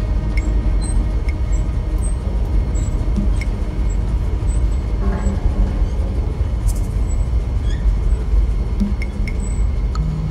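Tugboat engine rumbling deep and steady below decks, with scattered faint metallic ticks and pings over it.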